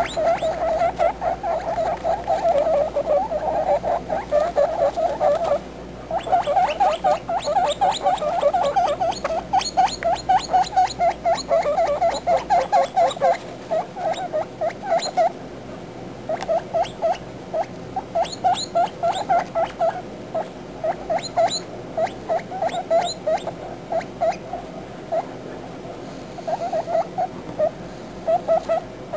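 Guinea pig pups calling: rapid runs of short, repeated squeaky notes, several a second, that come in bouts with brief pauses between them.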